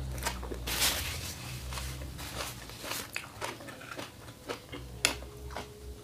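Close-miked chewing of a mouthful of fresh leafy greens: soft crunches and wet mouth clicks, with one louder crunch about a second in.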